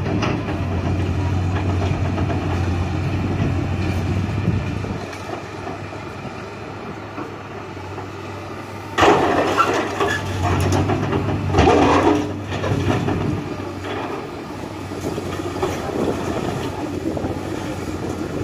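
Tracked hydraulic excavator's diesel engine running while its bucket breaks down a brick wall. Brick and masonry crash and tumble loudly twice, about halfway through and again a couple of seconds later.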